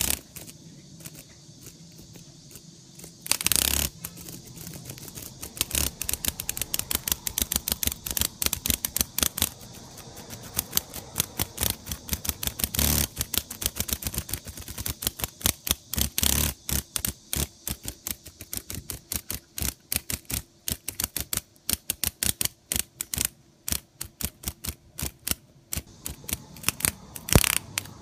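Close-up crackling and clicking from a katydid feeding on a live cicada: a fast, irregular run of sharp clicks, broken about five times by brief louder buzzing bursts as the cicada's wings flutter and beat against the wooden floor.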